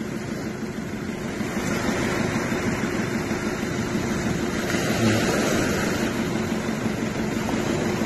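Sea waves breaking and washing over a pebble shore in rough surf, with wind on the microphone and a steady low engine hum from the tractor and boat out in the shallows.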